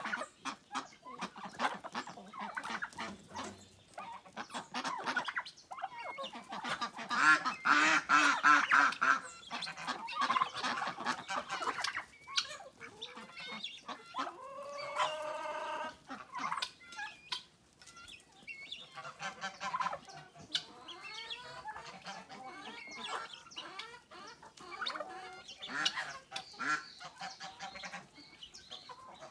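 Farmyard poultry calling over one another: a jumble of clucking and honking, with one longer drawn-out call about halfway through.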